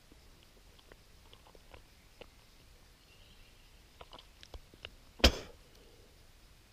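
A few light clicks and taps, then one sharp, loud knock about five seconds in.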